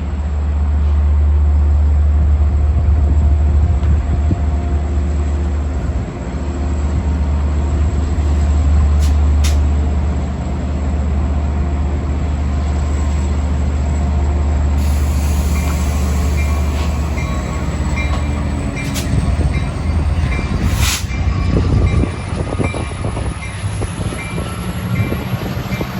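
An LIRR diesel passenger train hauled by locomotive 512, a DM30AC, running past: a loud, steady low diesel engine drone for most of the first 18 seconds. Then the rail cars rattle and hiss over the track, with a sharp bang about 21 seconds in.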